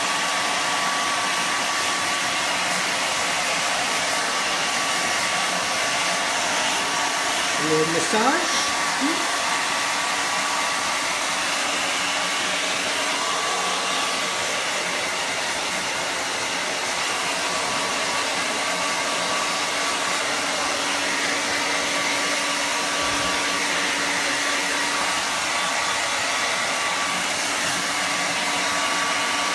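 Handheld hair dryer running steadily while it blows a wet dog dry: an even rush of air with a constant motor whine. A brief squeak comes about eight seconds in.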